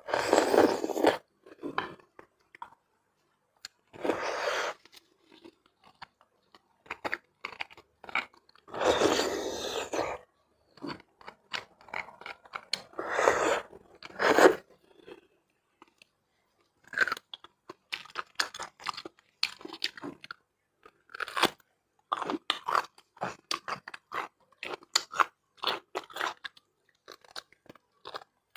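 Close-miked eating sounds of braised beef bone marrow: marrow spooned and sucked from the bone and chewed, in loud bursts a few seconds apart, then a quick run of short clicks in the second half.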